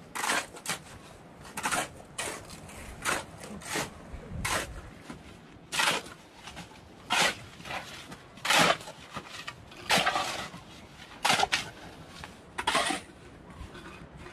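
Shovel scraping through gravel, stroke after stroke, about one every second and a half.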